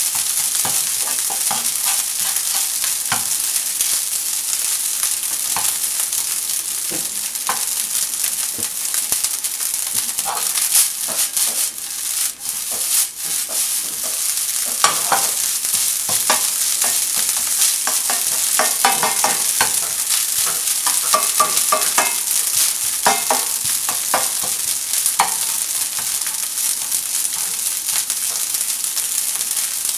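Fried rice sizzling in a nonstick frying pan while it is stirred and scraped with a plastic spatula: a steady high sizzle broken by repeated scrapes and taps of the spatula against the pan.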